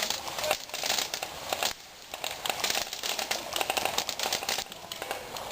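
Close, dense rustling and crackling made of many small irregular clicks, with a short lull about two seconds in.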